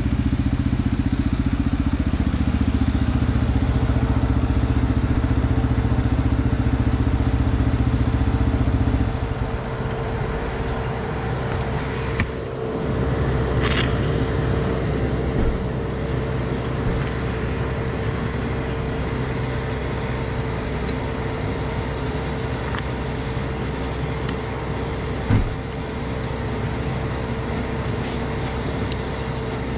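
Beta RR 125 LC enduro motorcycle engine running loudly with a steady pitch; about nine seconds in it drops away to a quieter, steadier running sound. A brief thump comes near the end.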